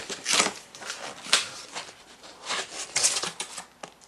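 Cardboard box flaps being handled and folded open: several bursts of cardboard scraping and rustling, with a sharp tap just over a second in.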